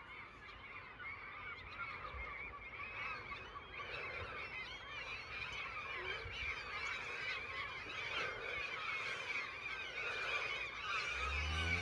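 A large flock of gulls screeching together, a dense overlapping chorus of many calls that grows slowly louder. Near the end a low, drawn-out call with a rising pitch starts up under it.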